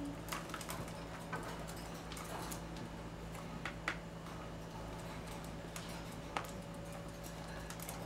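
Budgerigars bathing in a plastic tub of water: scattered light clicks and taps from their feet and beaks on the tub and the wire cage grid, with small splashes, over a steady low hum.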